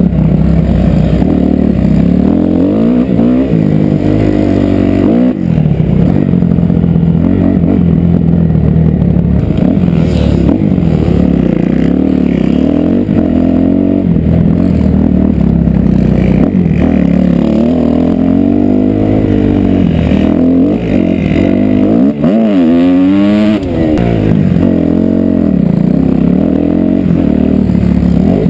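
Dirt bike engine running loud and close to the microphone, its revs rising and falling through the turns, with a quick run up in revs about three-quarters of the way through.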